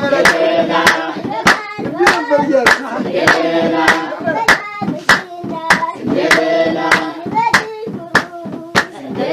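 A song sung to steady rhythmic hand clapping, about two claps a second, with the singing rising and falling in phrases between the claps.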